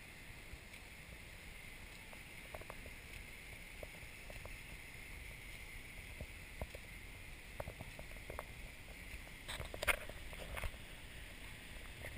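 Faint steady hiss with scattered small clicks and knocks, a denser cluster of them about ten seconds in: handling noise from a handheld camera being carried around.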